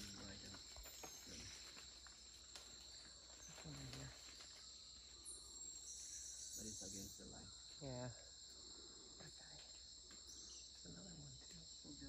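Steady, high-pitched drone of rainforest insects on two pitches, with faint voices a few times in the background.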